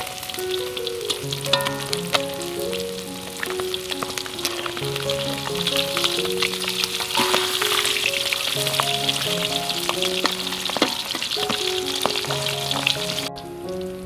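Small fish deep-frying in hot oil in a wok, a steady sizzle full of crackles. It cuts off abruptly about a second before the end.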